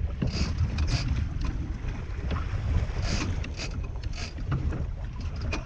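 Wind buffeting the microphone on a moving fishing boat, over a steady low rumble of boat and water noise, with short hissing bursts every second or so.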